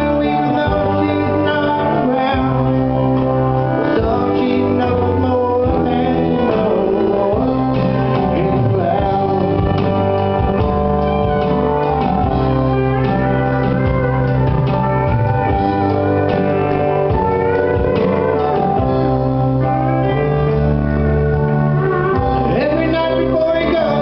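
Live country band playing a song: strummed acoustic guitar over a steady bass line, with singing.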